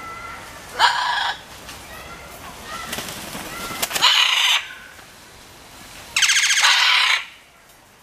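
Scarlet macaws squawking: three loud calls, the first about a second in, the second about four seconds in, and a longer one near the end. Faint whistled bird calls sound between them.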